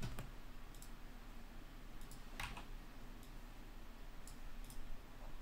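Several faint, scattered clicks of a computer mouse, the loudest about halfway through.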